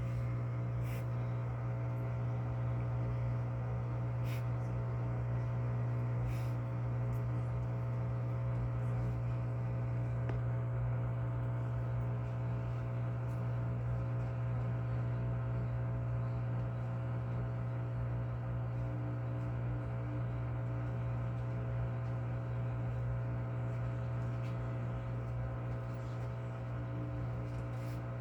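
LG Inverter Turbo Drum washing machine humming steadily, a low hum with many steady overtones, with a few faint clicks in the first several seconds. The drum is not spinning up: a fault the technician traces to the water-level pressure switch not sending the signal that tells the control board to start the spin.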